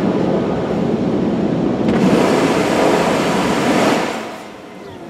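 Loud rushing hiss of car-wash water spray on the car. It gets louder and brighter about two seconds in, then dies away just after four seconds.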